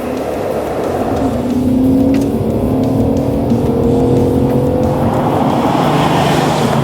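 Ford FG XR8's Boss V8 under acceleration through an X-Force VAREX exhaust, its pitch climbing steadily over several seconds.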